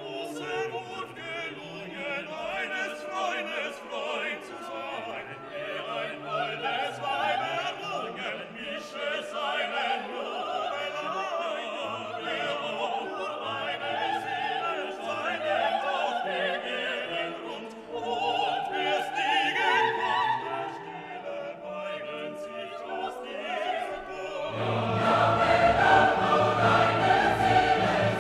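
Background music: classical choral singing with orchestra, getting fuller and louder near the end.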